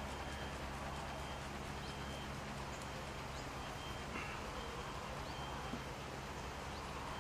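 A groundbait riddle being shaken by hand over a bowl, the damp feeder mix rustling and pattering through the mesh as it is sieved to break up lumps after wetting.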